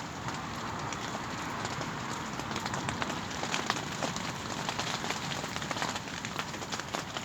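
Light rain falling, a steady hiss dotted with many small, sharp ticks of drops landing.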